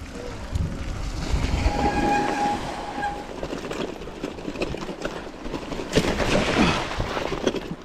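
Mountain bike rolling fast over a dirt trail and a rough concrete creek crossing: steady tyre rumble and wind noise with the bike rattling, and a run of loud knocks and jolts about six seconds in as it crosses the rough concrete. About two seconds in, a steady whistling tone lasts about a second.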